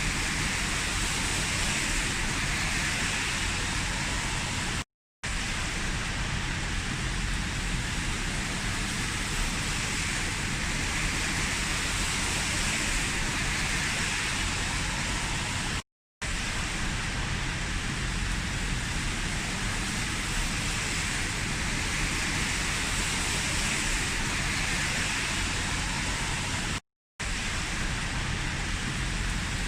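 Heavy rain falling in a steady, even hiss with a low rumble underneath. It cuts out to silence for a split second three times.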